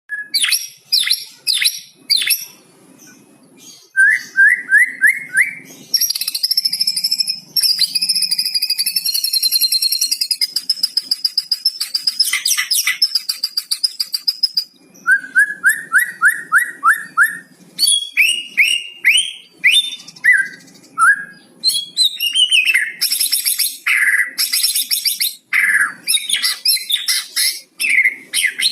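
White-rumped shama (murai batu) singing a loud, varied song that carries imitated cucak cungkok phrases: quick runs of repeated notes, a long high trill lasting several seconds, and rapid changing whistles.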